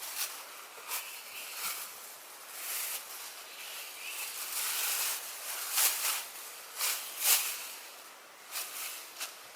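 Rustling and crinkling handling noises in uneven bursts, with a few sharper crackles about six and seven seconds in.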